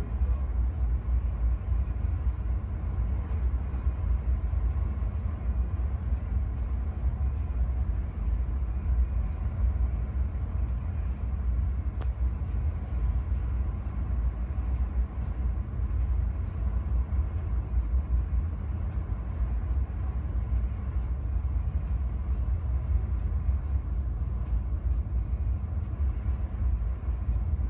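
Steady low rumble inside a container ship's bridge at sea, with faint, irregular ticking above it.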